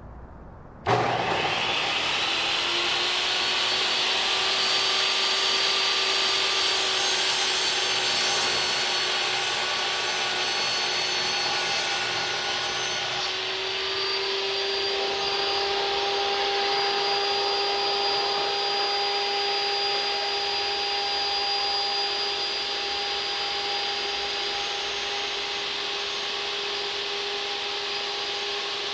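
Table saw switched on about a second in, its motor spinning up and then running steadily while crosscutting wood; there is a brighter, hissier stretch part of the way through.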